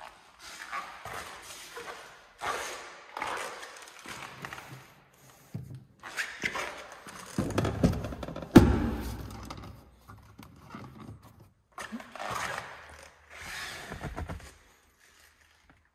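Shuffling, rustling and handling noises as someone moves around a car and climbs into its back seat, with one heavy thump about halfway through.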